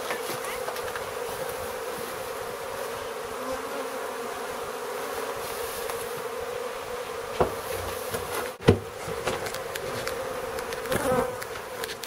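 Steady buzzing of a large wild honeybee colony, stirred up while its comb is being cut out. A couple of sharp knocks sound past the middle.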